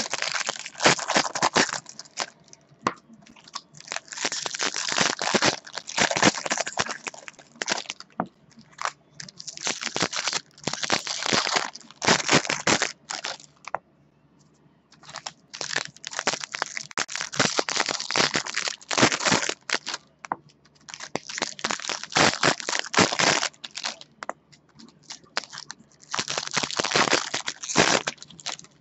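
Trading card pack wrappers being torn open and crinkled while the cards are handled. The crackling comes in bursts of a few seconds, with short pauses between.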